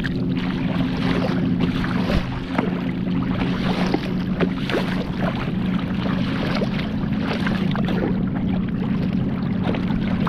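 Choppy lake waves splashing and slapping against a kayak's bow and hull, with wind noise on the microphone and a steady low hum underneath.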